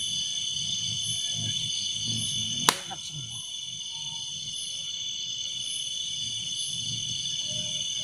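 Chorus of crickets trilling steadily at a high pitch, with one sharp click about two and a half seconds in.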